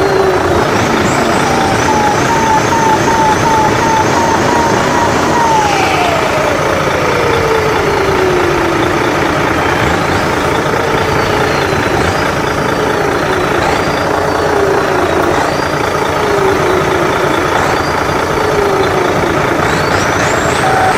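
Loud truck engine and turbo sound effects running without a break, with whistling tones that glide in pitch. A warbling tone gives way about five seconds in to one long falling whistle. Later, short rising-and-falling whistles repeat about every second and a half, and a quick rising whistle comes near the end.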